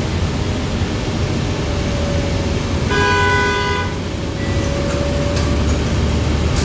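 Steady running noise inside a 2020 Gillig BRT 40-foot transit bus on the move, with one short vehicle horn blast about three seconds in.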